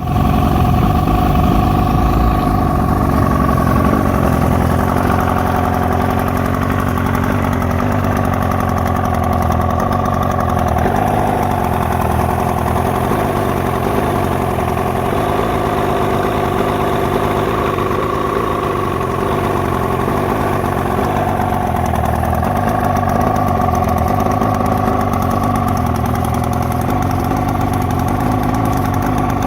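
1972 Mercury 402 40 HP two-stroke outboard motor idling steadily, with a rough idle.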